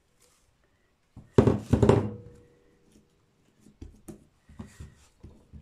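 Bread dough turned out of a glass bowl onto a silicone baking mat: two loud thunks about a second and a half in, followed by a short ring. Then softer, irregular thuds as the dough is kneaded by hand on the mat.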